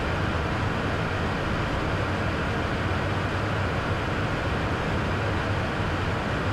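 Steady cabin noise of a Beechcraft Premier 1A twin-turbofan business jet in flight: an even rush of airflow over a constant low hum.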